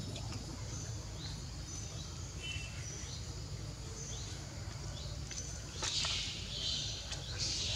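Outdoor ambience: short, high, thin chirps repeat about once a second over a low steady rumble. A louder high rasping burst comes about six seconds in and again near the end.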